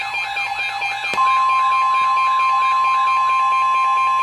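Electronic warbling alert sounding about two and a half times a second. About a second in, after a click, the steady 1050 Hz NOAA Weather Radio warning alarm tone comes on over it and holds, announcing a warning about to be broadcast.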